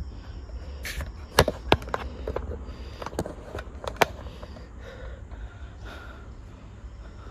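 A handful of sharp clicks and knocks, several in quick succession, over a steady low rumble.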